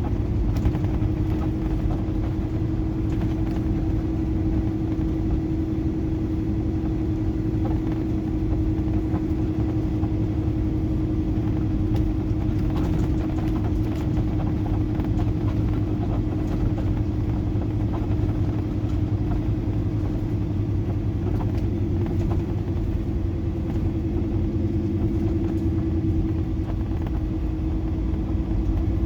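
Semi truck's diesel engine running steadily at low speed, a constant low rumble with a steady hum.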